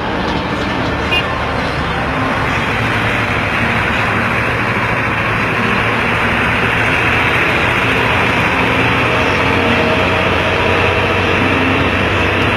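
Bus engine run at high revs through an aftermarket racing exhaust with a shrill, snoring note. The sound swells about two seconds in and then holds steady and loud.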